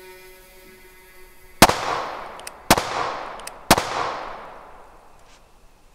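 Three loud gunshots about a second apart, each followed by a long echoing decay, with faint clicks between the shots.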